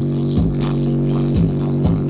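Bass-heavy electronic music played loud through a speaker for a bass test: held deep bass notes with a kick drum hitting about twice a second.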